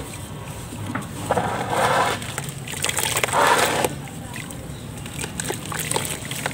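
A chunk of dried sandy dirt dunked and squeezed by hand in a plastic tub of water, crumbling apart. The water splashes and sloshes twice, about a second in and again around three seconds in, with small crackling ticks between.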